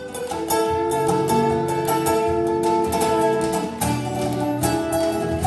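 A band playing an instrumental passage, with plucked guitar to the fore over held notes and bass.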